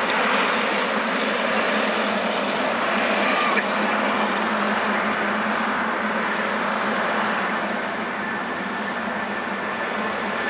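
Boeing 777-300ER's GE90 turbofan engines running at taxi power as the airliner taxis past: a steady jet rush and whine that eases slightly in the second half.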